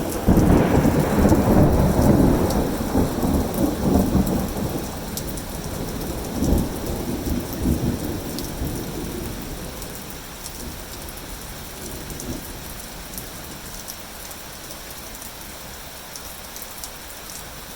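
Thunderstorm: a loud clap of thunder rolls into a long rumble with several swells, fading out about halfway through and leaving steady rain.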